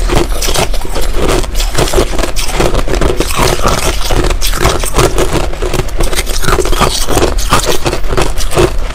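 Finely crushed ice being chewed close to a lapel microphone, a dense unbroken run of crunches, with metal spoons scraping and scooping through the crushed ice in the bowls.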